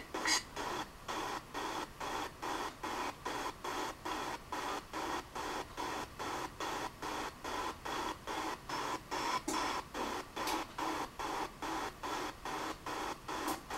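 A steady, even pulsing noise, a little over three pulses a second, like a machine running in a regular cycle.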